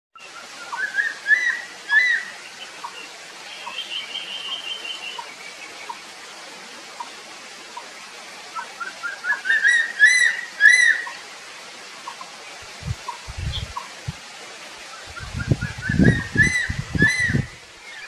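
Wild bird singing a quick phrase of rising notes three times, with a faint short note repeating about once a second, over a steady hiss. A few low thumps come near the end.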